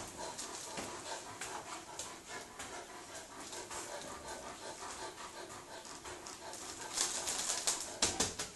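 A cat purring steadily, with small rustles and clicks throughout. About seven seconds in comes a louder patch of sharp crinkling and scratching, as the kitten paws at the plastic bag and the cardboard box.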